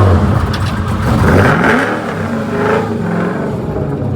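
A car engine revving and accelerating, its pitch rising briefly about half a second in, then running on steadily.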